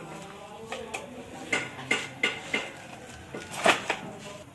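Sharp clinks and knocks of ceramic tiles being handled and struck: four in quick succession about a second and a half in, and the loudest one near the end.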